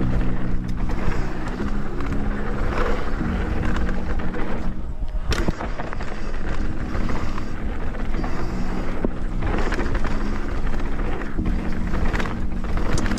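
Mountain bike descending a rough trail: steady wind rush on the microphone and tyre and chassis rattle over the ground, with background music holding low notes underneath.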